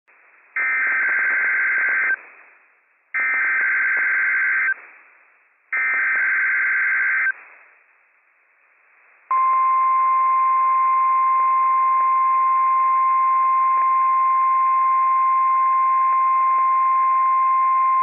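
NOAA Weather Radio Required Weekly Test signal: three short identical bursts of SAME digital header data, each about a second and a half long, then, after a pause, the steady 1050 Hz warning alarm tone held for about nine seconds over a light hiss.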